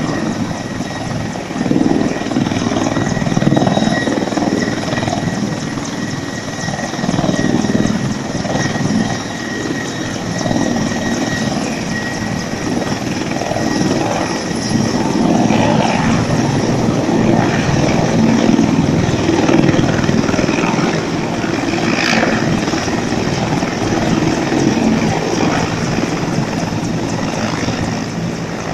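Mil Mi-35 attack helicopter running close by: steady turbine and rotor noise that swells and eases every few seconds, with a thin high whine in the first half.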